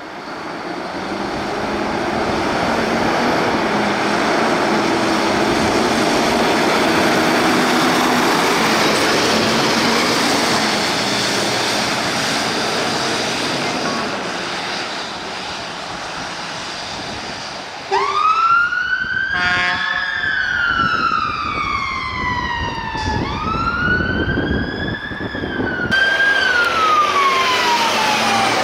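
A vehicle passes with a loud rushing noise that swells and fades over the first half. About eighteen seconds in, an emergency vehicle's siren starts. It wails in sweeping rises and falls, with a fast pulsing tone at its onset, and starts a new sweep twice more.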